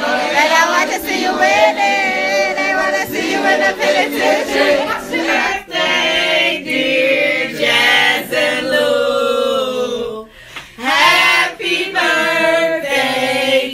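A group of voices singing together without instruments, with a short break about ten and a half seconds in.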